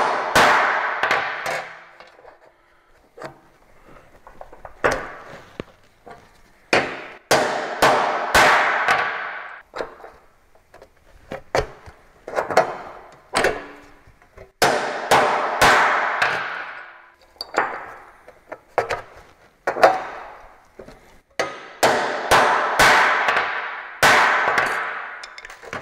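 Ball-peen hammer striking a steel dimple die punch to press countersink dimples around the screw holes of a bead-rolled sheet-metal panel, which also shrinks the panel's edge to take the pop out of it. Sharp metallic clangs come in groups of two or three blows, a group for each hole, and each blow rings on and dies away over a second or two.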